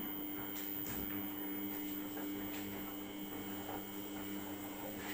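Steady electrical hum holding two low tones, with faint scattered clicks.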